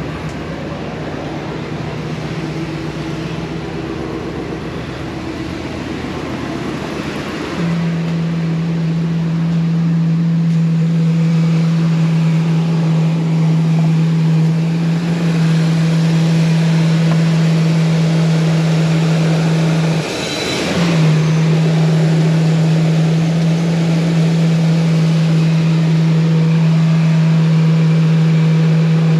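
Ford E-250 van engine idling steadily soon after a rebuild and first start. About eight seconds in, a loud steady hum joins the idle; it cuts out briefly about twenty seconds in, then returns.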